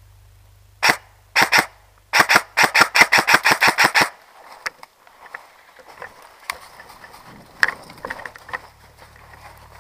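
Airsoft electric gun (Scorpion EVO 3 A1 replica) shooting close by: a single shot, then two more, then a fast string of about a dozen shots, roughly seven a second, that stops about four seconds in. After that come quieter scattered rustles and clicks in dry leaves as the shooter moves.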